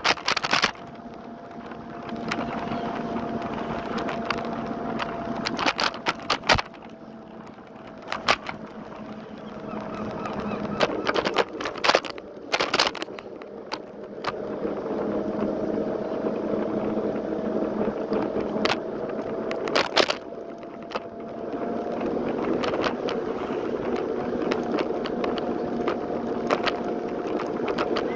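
Lime electric scooter rolling along a street: a steady whine over wheel and road noise, with sharp knocks and rattles as it goes over bumps, several in quick succession midway and another hard knock later.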